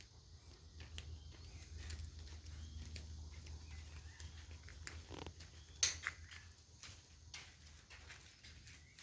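Birds chirping faintly over a low steady rumble, with scattered clicks and one sharp click about six seconds in.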